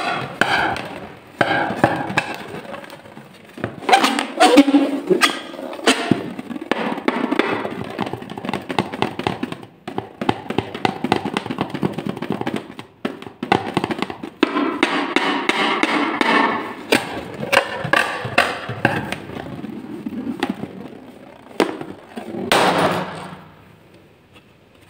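Hands rubbing, squeezing and tapping a filled rubber balloon, with a rapid run of rubbing sounds and sharp taps, going quiet near the end.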